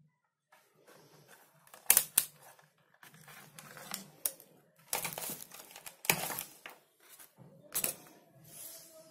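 Handling noise as a digital multimeter and its test leads are picked up and cleared off the bench: clicks, rustling and several sharp knocks, loudest about two seconds in and again around five to six seconds in.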